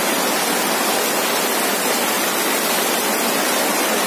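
Floodwater rushing past in a loud, steady, unbroken rush.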